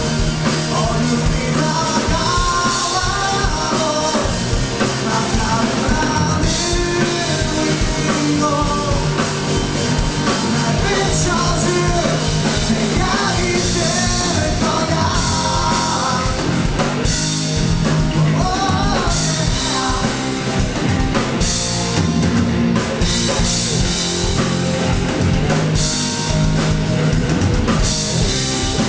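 Rock band playing live, with a drum kit and a sung lead vocal over the full band.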